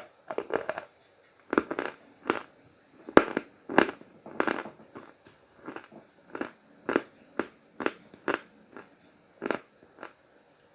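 A person biting and chewing Khrapovsky chalk: a run of crisp crunches, roughly two a second.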